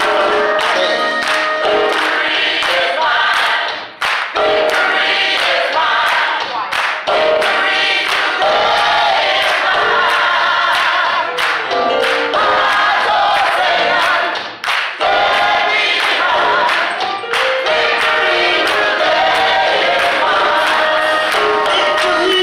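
Live gospel singing: a woman leads into a microphone while a choir sings behind her, with steady hand-clapping on the beat.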